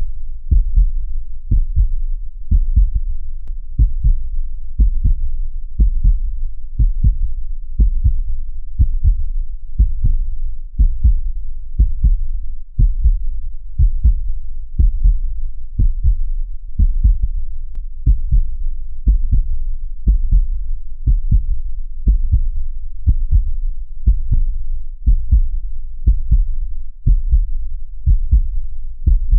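Steady heartbeat: paired low lub-dub thumps repeating evenly at about one beat a second, over a low rumble.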